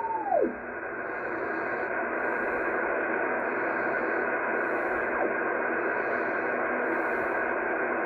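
Kenwood R-5000 shortwave receiver in lower sideband, giving a steady hiss of band noise as the dial is tuned down the 40-meter amateur band with no station on. In the first half second a carrier's whistle slides down in pitch and disappears as the tuning moves off it. It is a pretty quiet band.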